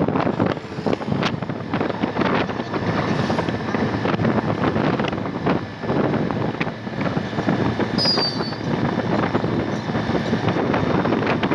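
Wind buffeting the microphone of a moving motor scooter, with road and engine noise underneath. A brief high-pitched chirp comes about eight seconds in.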